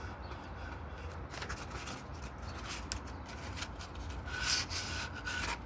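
Sandpaper rubbed by hand over the white primer coat on a guitar body, scratching in irregular strokes to knock down the rough bumps before the color coat.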